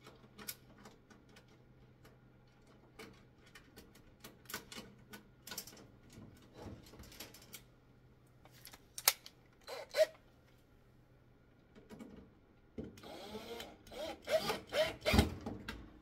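Light clicks and taps of screws and metal parts being handled, with a couple of sharper knocks about nine and ten seconds in. Near the end a cordless drill runs in short whirring spurts, driving a screw to fasten a replacement tanning-bed ballast.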